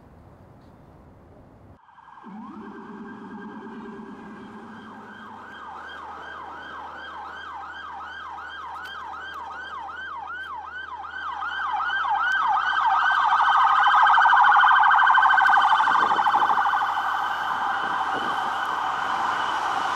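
Emergency-vehicle siren in a fast rising-and-falling yelp, about two sweeps a second. It comes in about two seconds in and grows steadily louder, loudest about three-quarters of the way through, as if approaching.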